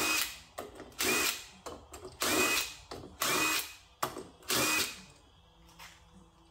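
Cordless power tool with a socket spinning bolts at the valve body of a 4L80E automatic transmission, run in five short bursts of motor whine over the first five seconds, then stopping.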